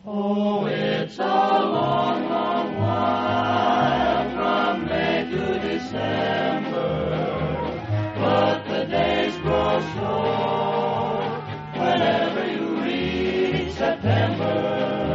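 Choir singing with orchestral accompaniment, a continuous passage of ensemble vocal music.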